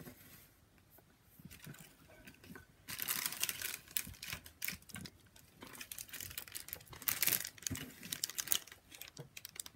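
Scratchy rustling and crinkling with many quick light taps, starting about three seconds in, as a makeup puff and a plastic powder compact are handled close to the microphone.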